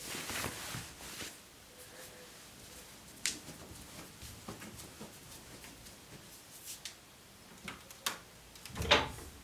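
Scattered small clicks and rustles in a quiet small room, with one louder, longer rustling swish about nine seconds in.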